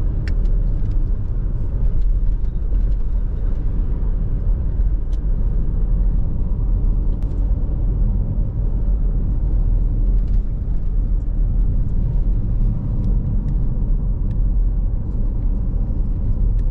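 A car driving along a road: a steady rumble of engine and tyre noise, with a few faint ticks.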